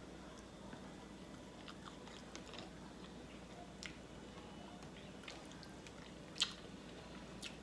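Close-up eating sounds from a person biting and chewing smoked turkey leg meat: soft wet mouth clicks and smacks scattered throughout, with one much louder sharp click about six and a half seconds in.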